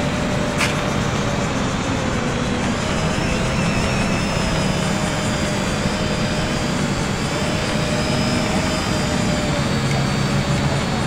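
Small quadcopter's propellers buzzing in flight, the pitch wavering up and down as the throttle changes, over a steady low rumble. A single click about half a second in.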